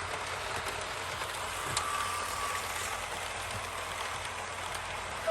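Class 37 diesel locomotive with Mk2 coaches, a steady rushing rail noise over a low engine rumble, with a click and a short high tone about two seconds in.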